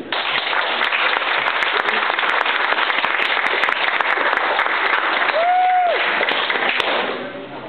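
Audience applauding, starting all at once and dying away near the end, with one short high-pitched cheer about five and a half seconds in.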